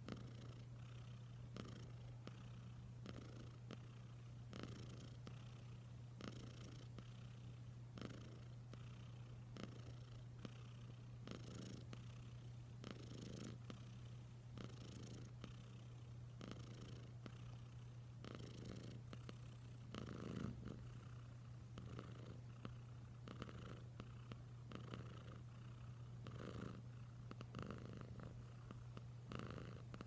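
A long-haired cat purring steadily, close up. The purr swells and eases with its breathing, about once a second.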